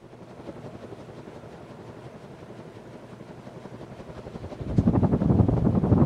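Antique Emerson ceiling fan running, a rhythmic whir that gets much louder about three-quarters of the way through.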